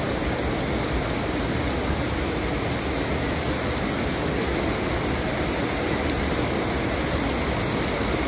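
Steady rain, an even hiss with occasional faint ticks.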